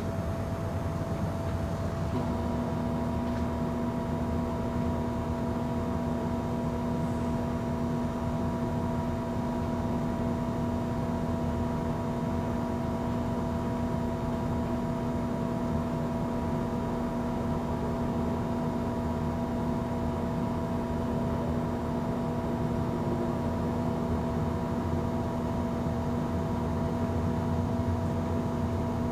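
Electrical hum from a high-pressure sodium lamp's ballast that comes in about two seconds in and then holds steady over a constant background noise and a faint steady whine. The onset of the hum is the lamp's hard start, the point at which current starts to flow as the cold 150 W Philips lamp strikes.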